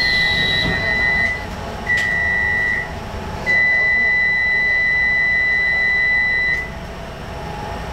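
Electronic warning tone aboard a Docklands Light Railway train: three long beeps at one high pitch, the last held for about three seconds. A steady low rumble of the train runs underneath.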